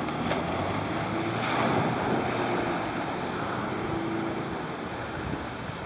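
First-generation Subaru Forester driving through a muddy bog hole: water rushing and splashing around the car as it pushes a bow wave, with the engine's hum underneath. The splashing swells about a second and a half in.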